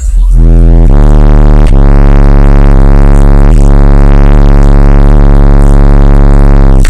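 Two Digital Designs 1500-series 12-inch subwoofers in a ported box tuned to 29 Hz, playing bass-heavy music so loud that the recording is pinned at full level. A deep, sustained bass note steps to a new pitch twice in the first two seconds, then holds until it stops abruptly near the end.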